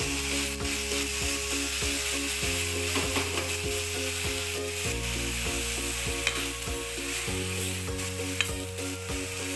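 Shredded young papaya sizzling in hot oil in a pan as it is stirred and tossed with a metal ladle, with scattered scrapes and clicks of the ladle against the pan.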